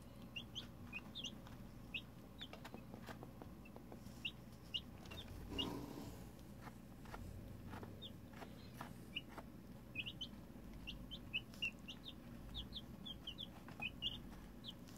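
Two-week-old chicks (pullets) peeping: many short, high chirps, scattered and coming in flurries. There are faint taps throughout and a brief rustle about six seconds in.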